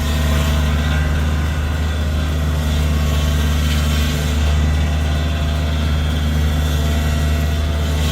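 A large machine's engine running steadily at constant speed: an even, loud low drone with no rise or fall.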